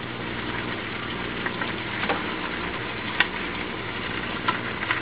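Mixed vegetables sizzling and steaming in a wok while being tossed with bamboo utensils, the wooden paddles clicking against the pan a few times, over a steady low hum. The wok is not hot enough to sear, so the vegetables steam rather than stir-fry.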